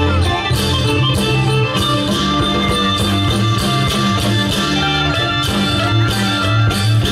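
Isan folk dance music: a plucked-string melody over a steady beat.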